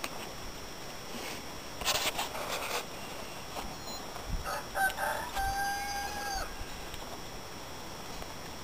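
A rooster crowing once, about halfway through: a few short notes, then one long held note that drops at the end. Before it, about two seconds in, a brief breathy rustle.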